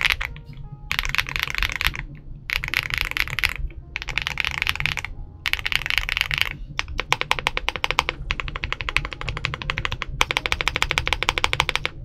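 Typing on a stock XVX K75 Pro aluminum 75% mechanical keyboard with its included linear switches. About a second of dense keystrokes comes at a time with short pauses between. Past the middle it changes to a fast, even run of single key strikes, then a last quick flurry of typing.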